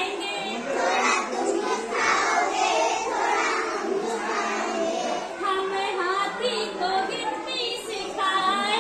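A group of children chanting a Hindi counting rhyme in unison, led by a woman's voice.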